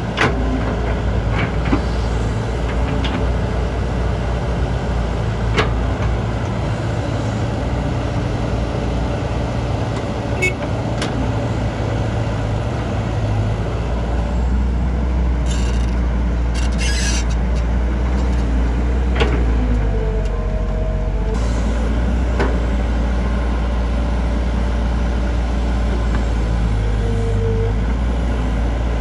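JCB JS205 tracked excavator's diesel engine running steadily under digging load with a steady whine. Sharp knocks come every few seconds, and there are short hisses about halfway through.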